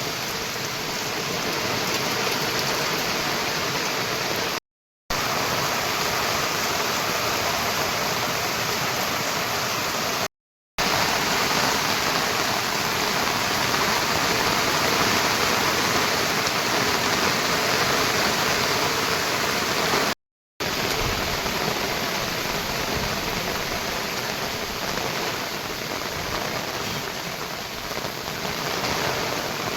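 Steady rush of heavy monsoon rain and running water, cutting out briefly three times, at about 5, 10 and 20 seconds.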